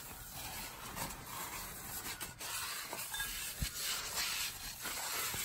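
Paper towel rubbing over the Honda S2000's steel flywheel clutch face, wiping it dry after a brake-cleaner rinse: faint, uneven wiping strokes.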